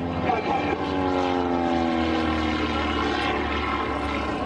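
Propeller-driven aerobatic biplane flying overhead, its engine and propeller sound sliding steadily down in pitch as it goes past.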